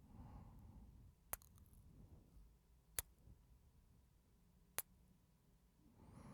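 Three sharp, close-miked kiss smacks, about a second and a half apart, over quiet breathing.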